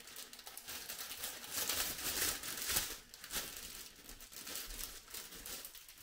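Thin clear plastic bag crinkling and rustling as a model kit sprue is handled and pulled out of it, in many small irregular crackles.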